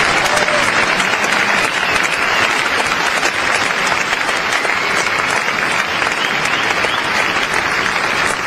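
Arena crowd applauding steadily after a point in a badminton match.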